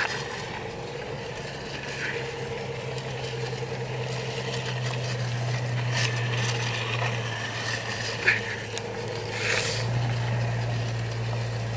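Car engine running steadily, towing a sled through snow, over a continuous hiss of snow. A few brief sharper noises cut in near the end.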